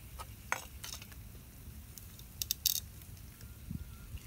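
Fish frying in hot oil in a clay pot: a faint sizzle with scattered crackles, and a few sharp clicks about two and a half seconds in.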